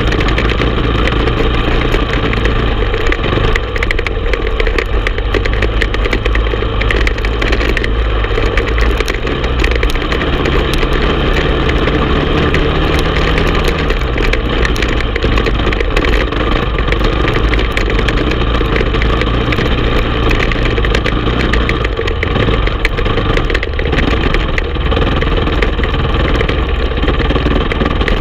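Honda TRX450 ATV engine running as the quad climbs a dirt hill trail, loud and steady. About ten seconds in, the engine note climbs for a few seconds, then drops back.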